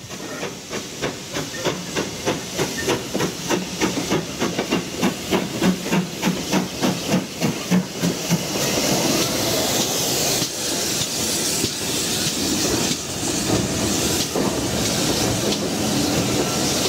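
Steam locomotive pulling away. Its exhaust beats come faster and faster for the first half, each with a hiss of steam, then merge into a steady rush of steam and running noise.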